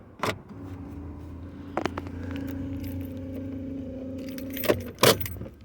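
Small electric motor of the F150's power tilt steering column humming steadily for about four seconds as the steering wheel moves up, with a few sharp clicks around it.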